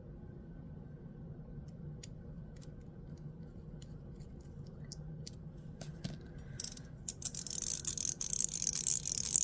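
Gao Studio Magnetic Master 2.0 haptic fidget coin, fitted with ceramic balls, being worked by hand: a few scattered small clicks, then, from about seven seconds in, fast continuous clicking and rattling as its ball detents snap.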